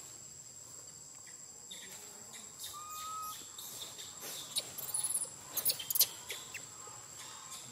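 Steady high-pitched insect drone with a short bird-like chirp about three seconds in. In the second half comes a cluster of sharp crackles, the loudest part: dry leaf litter rustled as the macaques move.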